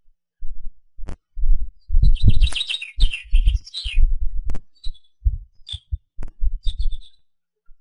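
Wind buffeting the microphone in irregular low gusts, with a small bird singing a quick run of chirps about two seconds in and a few more short chirps later.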